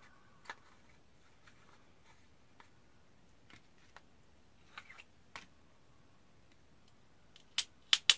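Scattered light clicks and taps of small plastic makeup packaging being handled, with a few louder clicks close together near the end.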